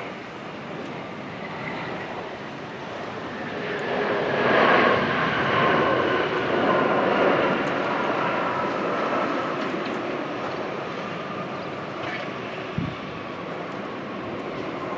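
Jet airliner engines passing: a rushing noise with a whine that builds to a peak about five seconds in, then slowly fades as the whine sinks slightly in pitch. A short soft bump near the end.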